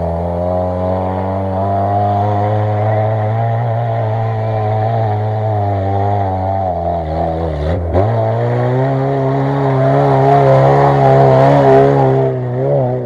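LuAZ-969's air-cooled V4 engine pulling up an off-road track under load, rising as it approaches. Its pitch dips sharply about eight seconds in and picks up again, and it is loudest near the end as the vehicle passes close by.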